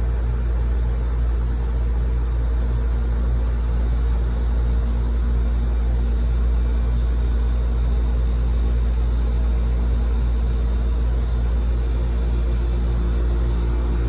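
Outdoor air-conditioning condenser unit running: a steady low hum and rumble with an even, unchanging tone over it.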